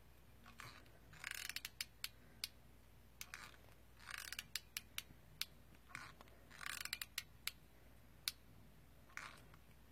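Hot glue gun's trigger squeezed over and over, its feed mechanism clicking and ratcheting quietly in short bursts of quick clicks with pauses between. The glue gun is worn out, on its last legs.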